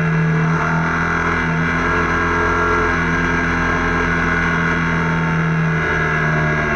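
Motorcycle engine running at a steady cruising speed, holding an even pitch, over a constant rush of wind and road noise.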